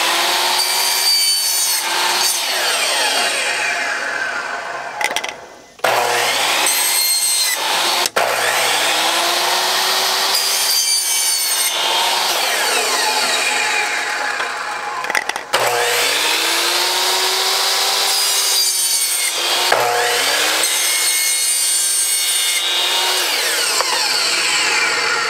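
Kobalt sliding miter saw cutting PVC pipe: several cuts in a row, the motor's pitch rising as it spins up and falling as it winds down, with the blade rasping through the plastic in between.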